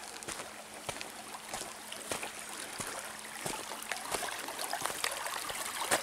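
Shallow stream water trickling and running, with scattered faint clicks and rustles.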